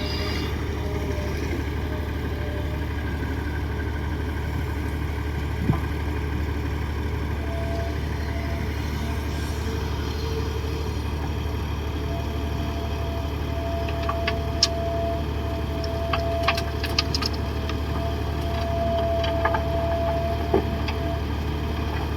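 Komatsu D58 crawler bulldozer's diesel engine running steadily with a deep rumble. A thin steady whine joins about a third of the way in, and several sharp metallic clanks come in the second half.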